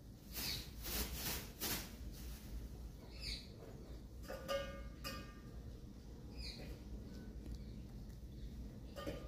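Faint bird calls: a few short, sweeping high calls and a longer, fuller call about four and a half seconds in and again near the end. Soft rustling of leafy greens in the first two seconds, as rabbits nibble at them through wire mesh.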